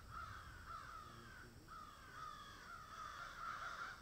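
A faint, continuous chorus of many crows cawing, their short calls overlapping and repeating several times a second.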